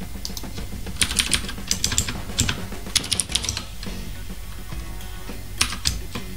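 Computer keyboard being typed on in quick bursts of keystrokes, a longer run from about a second in and a short one near the end, with background music underneath.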